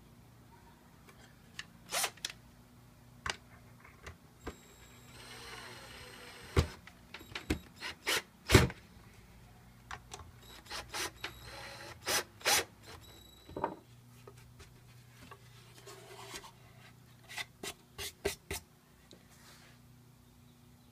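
Power drill driving screws into a plastic rope cleat in two short runs, with scattered clicks and knocks of the parts and the drill being handled.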